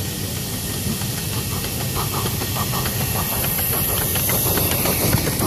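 Live-steam ride-on scale model of a Southern Pacific Daylight locomotive passing close, hissing steam over a low rumble of its wheels on the track, with short clicks, growing slightly louder as it nears.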